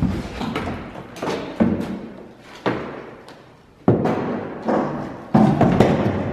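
Irregular heavy thumps and bangs, about five in a few seconds, as parts in a pickup truck bed are yanked and knocked loose by hand.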